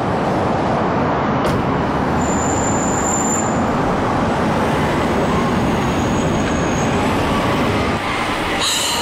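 Steady rumbling noise of a moving vehicle.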